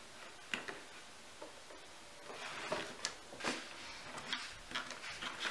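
Faint paper-handling sounds of cardstock being folded inward and pressed into place: light rustles, then scattered small clicks and crinkles from about two seconds in.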